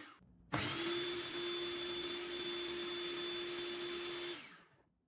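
Hamilton Beach food processor motor starting up about half a second in with a quick rising whine, running at a steady pitch while chopping garlic to a paste, then switched off and winding down near the end.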